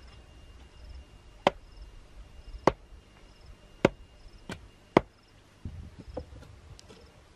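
Wooden mallet pounding an upright stake into the ground: five sharp knocks about a second apart, the last two closer together, then a few softer knocks.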